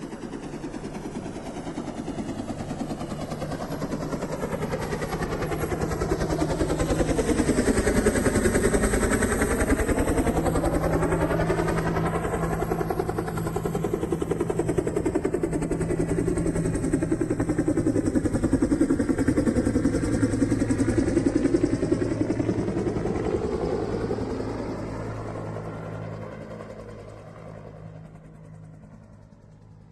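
Aircraft engine drone passing overhead: it builds up over the first several seconds, stays loud through the middle with a sweeping, swishing change in tone as it passes, and fades away near the end.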